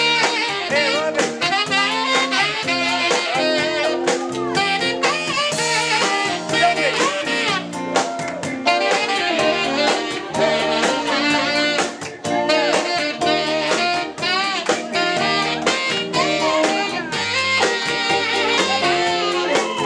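Live band playing: a saxophone carries the tune over electric bass guitar and a drum kit.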